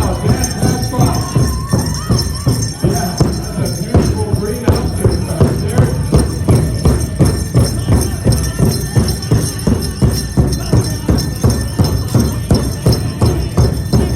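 Powwow drum group: a large hand drum struck in a steady, fast, even beat, with voices singing over it in the first few seconds and again briefly a few seconds later.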